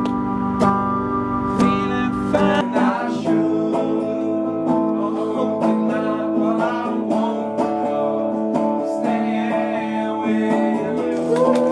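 Electric guitar and bass guitar playing a rock tune, with a man singing over them. The sound changes abruptly about two and a half seconds in as a different take begins.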